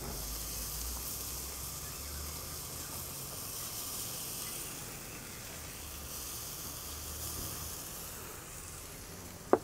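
Beef steak sizzling steadily on a charcoal grill grate as it is basted with sauce, the steak nearly done. A single brief click near the end.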